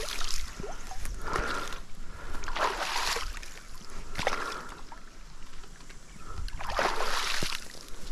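Creek water scooped up and splashed out of a vinyl fish brag mat several times, wetting the mat. The splashes come in separate bursts about a second and a half apart, with the longest near the end.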